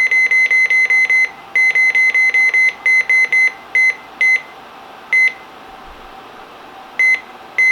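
Midland 74-200 weather radio beeping as its buttons are pressed to set the date: short high beeps in quick runs of about six a second for the first two to three seconds, then single beeps spaced out by up to a couple of seconds.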